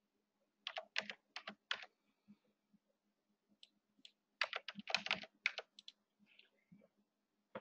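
Computer keyboard keys clicking in two short runs of typing, about a second in and again around four and a half seconds in.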